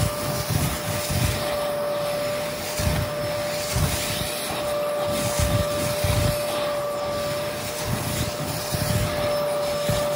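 Kärcher carpet-cleaning machine running with a steady motor whine and hiss of suction, over uneven low pulses.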